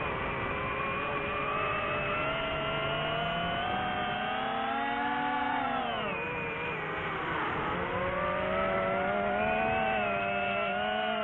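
Multirotor drone's propeller motors whining: several pitched tones that shift together, rising a little about four to five seconds in, then dipping sharply in pitch and climbing back as the drone changes speed.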